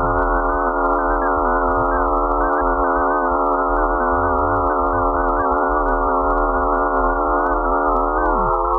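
Eerie electronic space drone: many held, slightly wavering tones layered over a low hum, presented as a moon's radio emissions converted into audible sound. Near the end a few of the lower tones slide down in pitch.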